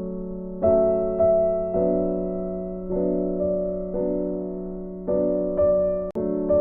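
Gentle background piano music: soft chords struck about every half second, each ringing and fading, with a brief cut and click about six seconds in.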